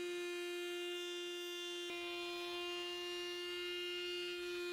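Trim router running at a steady high-pitched whine while flush-trimming hardwood edge banding on a plywood cabinet. There is a brief click about two seconds in.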